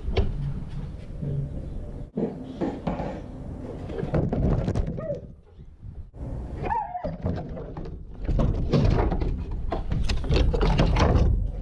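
Siberian husky whining briefly twice, then scrabbling and knocking against a wooden fence as it climbs over it, the loudest part near the end.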